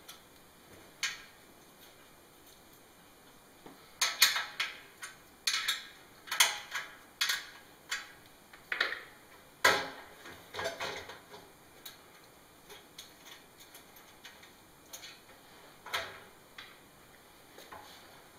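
Metal parts of a PIAB piFLOW vacuum conveyor clinking and clanking as it is unfastened by hand. The knocks and clicks are irregular and ring briefly. They are busiest from about four to eleven seconds in, with fewer, lighter ticks after that.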